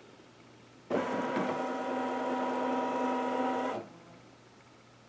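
Brother Luminaire embroidery unit's motors driving the hoop, a steady pitched motor hum that starts sharply about a second in and stops suddenly near four seconds: the machine moving the hoop while it scans for its embroidery positioning marks.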